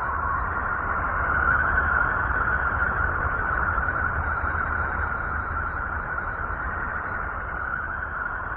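Electromagnetic waves from the planet Uranus converted to audible sound: a steady hissing drone concentrated in a mid-pitched band over a low rumble, swelling slightly a second or two in.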